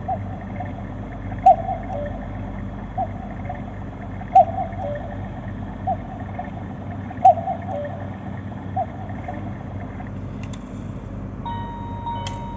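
Black Forest cuckoo clock calling 'cuckoo' again and again, seven two-note calls about every one and a half seconds, each with a click from the mechanism. About a second before the end the calls stop and the clock's music box starts playing a tinkling melody.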